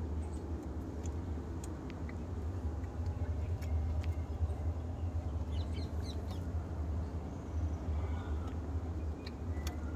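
Outdoor ambience: a steady low rumble, with a few faint, short high chirps about halfway through and again near the end, and scattered faint clicks.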